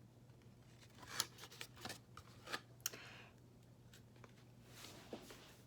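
Faint rustling and a few soft clicks as a picture book is handled and its pages are turned.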